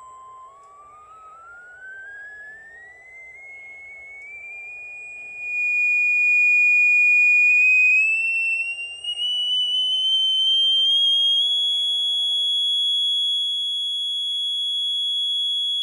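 Sine-wave test tone from a sound generator played through a studio monitor speaker. It starts steady at 1 kHz, then rises in small steps to about 3 kHz as the frequency knob is turned, and holds there. The tone gets markedly louder about five seconds in.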